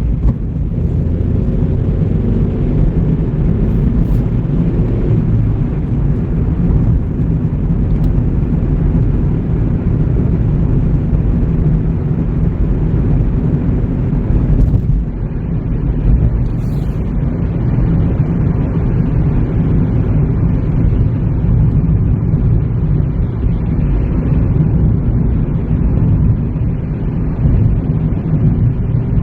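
Car driving at a steady pace: a continuous low rumble of engine and road noise. About halfway through, the higher hiss thins out while the rumble carries on.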